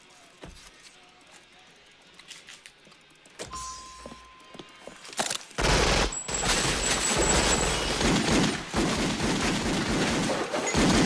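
A quiet stretch with a few faint clicks and a short steady tone about three and a half seconds in. Then, about five and a half seconds in, a heavy gunfight breaks out: dense, rapid gunfire with merchandise and shelving being shot apart.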